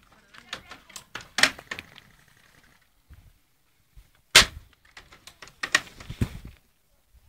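Airsoft guns firing single shots: sharp cracks, the loudest about a second and a half in and again about four and a half seconds in, among smaller clicks and knocks.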